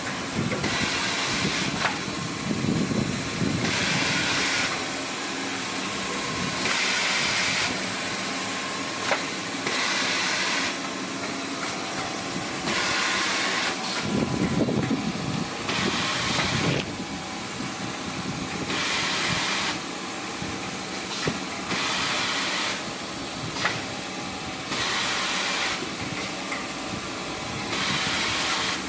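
XY-AI-500 automatic band saw cutting machine for 450 mm maxi paper rolls running steadily: a continuous mechanical hum with a hiss about every three seconds, each lasting about a second, as the machine works through its cutting cycles.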